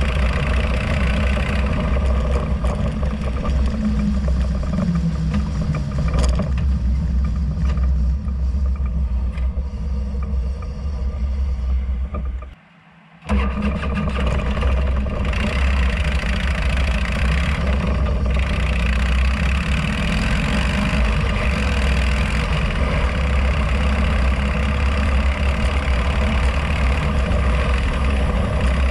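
Harley-Davidson Road Glide's V-twin engine running as the motorcycle rides along, with road noise. The sound cuts out for under a second about halfway through.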